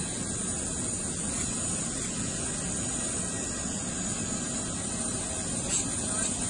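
Steady noise of a parked jet airliner on the apron, with a faint high whine.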